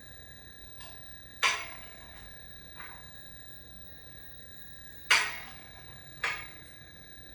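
Kick shrinker-stretcher working the edge of a sheet-metal panel: two sharp metallic clanks with a ringing decay, each followed about a second later by a lighter knock.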